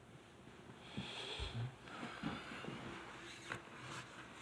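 A man's breathing close to the phone microphone during a pause in his talk, with a soft bump of the phone being handled about a second and a half in.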